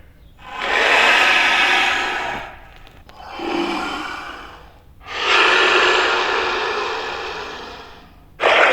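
Designed Austroraptor dinosaur sound effects: three long, breathy, hissing calls, each starting strong and fading away, the middle one weaker, and another beginning abruptly near the end.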